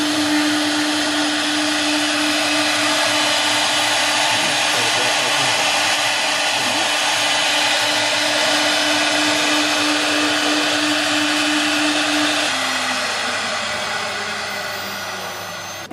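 CNC router spindle running at high speed with a steady whine over a rushing noise. About twelve seconds in it is switched off and spins down, its pitch sliding lower and the sound fading.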